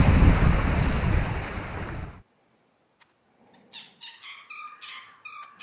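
Wind buffeting the microphone while sailing on a small catamaran, fading and then cutting off abruptly about two seconds in. After a short silence, a quiet string of short, high-pitched notes follows.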